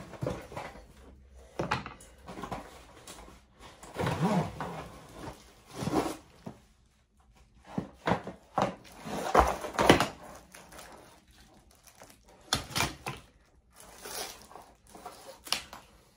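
Unboxing a plastic-wrapped tripod stand from a cardboard box: irregular rustling of plastic wrap and cardboard with handling knocks and thumps, the loudest around ten seconds in.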